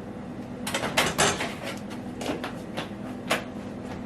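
Irregular light clicks and knocks from handling a coffee maker while loading it with ground coffee, starting under a second in, over a steady low hum.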